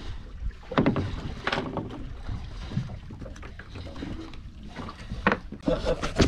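Deck sound aboard a small fishing boat on rough water: a steady low rumble of wind and water, broken by scattered knocks and clatter on the deck.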